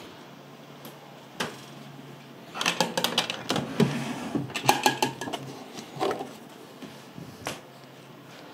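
A clatter of small hard objects being handled at a wooden dresser: a few single knocks, and a dense run of rapid clicks and rattles in the middle.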